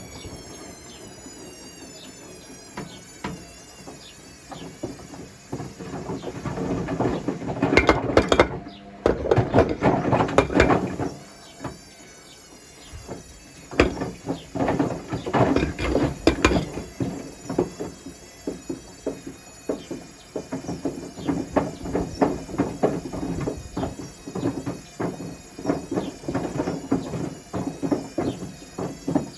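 Bricks knocking and clattering inside the drum of a Hotpoint Smart Tech WMFUG742 washing machine as the drum turns while it drains for the spin. The knocks are irregular at first, grow loudest about a third of the way in, ease off briefly, then go on as a run of quick repeated knocks.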